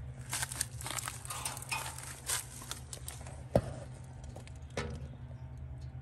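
Rustling and crackling of dry leaves and brush, with scattered clicks and one sharp knock about three and a half seconds in, over a steady low hum.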